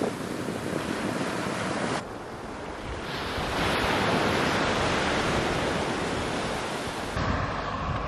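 Sea surf washing up onto a sandy beach, with wind on the microphone. The surf grows louder from about three seconds in. Near the end it gives way to a different, steadier noise.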